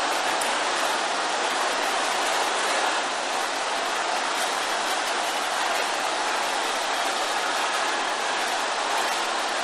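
Large congregation praying aloud all at once, many voices merged into a steady roar with no single voice standing out.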